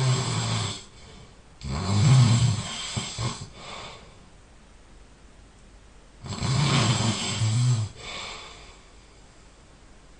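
A person snoring loudly, with three snores. The first two come close together, and the third follows after a pause of about two seconds. Each snore is a low buzzing noise with a softer breath trailing after it.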